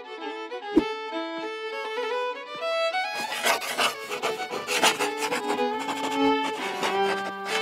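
Background music led by a violin: a melody of separate notes that turns to quick, hard bow strokes about three seconds in.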